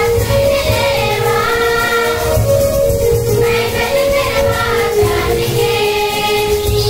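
A group of voices, children among them, singing a Christian devotional hymn with musical accompaniment, amplified over a loudspeaker system.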